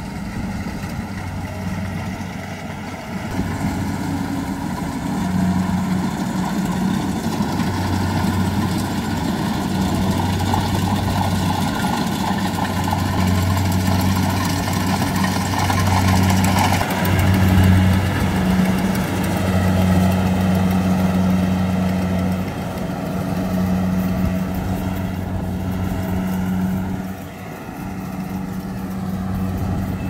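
Kubota rice combine harvester running while it cuts and threshes standing rice, its diesel engine droning steadily under the noise of the machinery. It grows louder as the machine comes close about halfway through, then eases off as it moves away.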